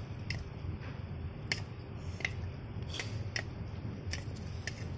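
About eight small, sharp clicks at irregular intervals over a low steady hum.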